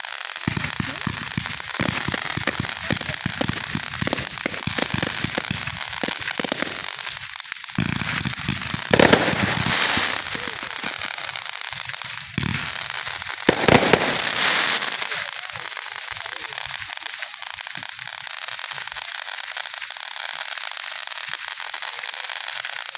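Consumer fireworks crackling and popping in a dense rapid stream, with two louder surges about nine and fourteen seconds in, settling into an even hissing crackle.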